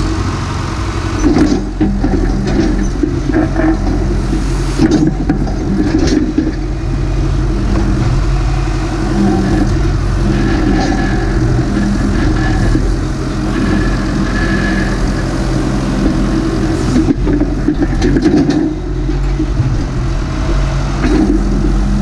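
Massey Ferguson MF50E backhoe's Perkins diesel engine running steadily under working load. A few knocks and scrapes from the bucket in the gravel.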